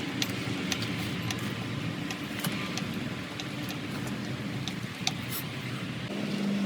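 A steady low mechanical hum from a running motor, a little louder near the end, with scattered light clicks and clinks of tools or metal parts.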